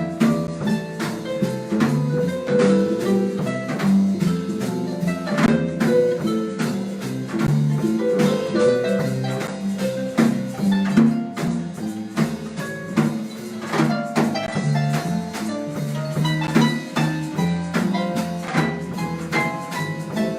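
Small harp jazz band playing live: a busy line of plucked notes over a bass part, with percussion keeping time.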